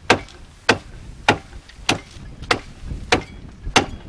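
Meat cleaver chopping a raw caribou carcass on a wooden box: seven sharp blows in a steady rhythm, a little under two a second.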